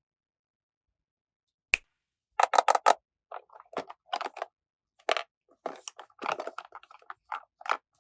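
Quiet, then a sharp click a little under two seconds in, followed by irregular crinkling and crunching as plastic toy packaging is handled, loudest in a quick run of four crunches just after the click.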